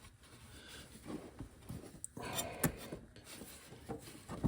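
Faint handling sounds of hands working on hoses and clamps: light rubbing with a few small clicks and taps.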